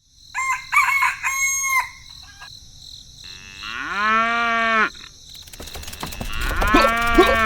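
Farm animal calls: a few short chicken clucks in the first two seconds, then a long cow moo about four seconds in, and another moo starting near the end.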